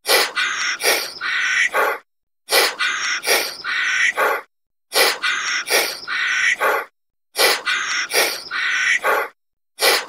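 Monkey calls: a short clip of sharp clicks and harsh, breathy chattering calls, looped about four times with a short dead silence between repeats.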